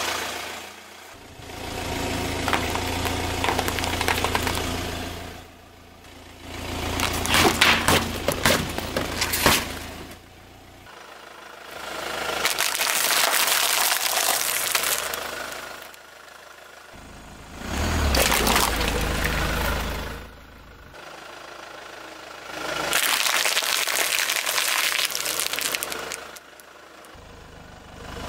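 Car tyre rolling slowly over food and small objects: crackling crunches and squelches as things burst and flatten under the wheel, over the low running of the car's engine. The sound comes in a series of separate crushings about three to four seconds each, with short quieter gaps between them.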